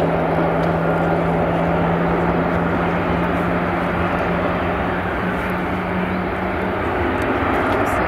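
Boeing 747's four jet engines rolling along the runway: a steady jet noise with a low hum that rises slightly in pitch and drops out about seven seconds in.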